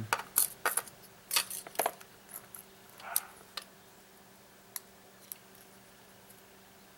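Small metal parts of a Yale lock and a shim clicking and tapping as the lock is worked apart by hand: a quick run of sharp clicks, a few more taps, then two lone ticks.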